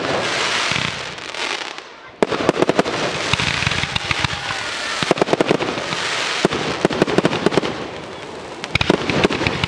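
Fireworks display: a rush of noise for the first two seconds, then a sudden dense run of rapid sharp crackling reports and bangs that carries on, with another burst of cracks near the end.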